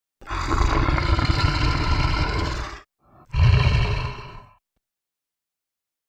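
Lion roaring twice: a long, deep roar of nearly three seconds, then a shorter one.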